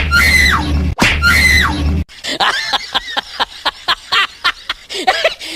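A high-pitched squealing cry, repeated three times identically in the first two seconds over a low hum, then a rapid string of short clicks and chirps.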